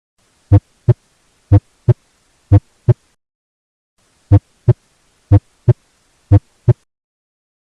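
Human heart sounds as heard through a stethoscope: paired lub-dub beats at a regular rate of about one per second, the first thump of each pair longer and stronger than the second. It is silent between the pairs, with no murmur, and there is a short pause partway through.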